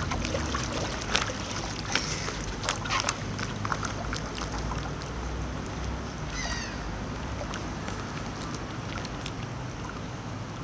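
Kayak paddle blades dipping and splashing in the water a few times over the first few seconds, over steady wind rumble on the microphone. About six and a half seconds in, a small bird gives a short, high, falling trill.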